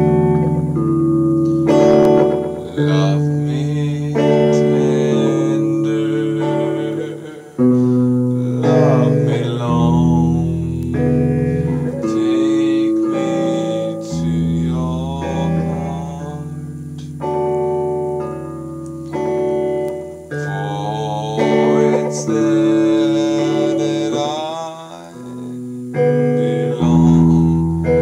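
A man singing a slow, wavering melody while playing chords on a guitar.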